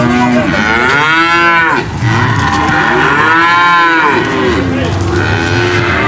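Cattle mooing loudly. Two long moos rise and fall in pitch, one starting about half a second in and one about two seconds in, with shorter calls around them.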